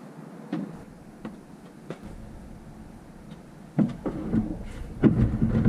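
Scattered light knocks, then two louder rumbling scrapes about four and five seconds in, as of something solid being shifted or handled.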